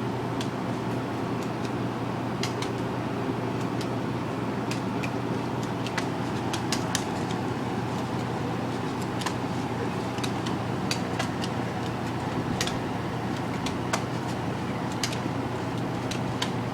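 Spring-powered airsoft guns firing, heard as scattered sharp snaps and clicks at irregular intervals throughout. Under them runs a steady low hum and rumble.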